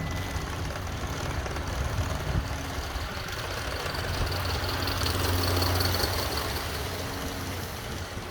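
Alcohol-fired G scale live-steam locomotive under steam, with a steady hiss of escaping steam over a low hum. The hiss grows a little louder about halfway through.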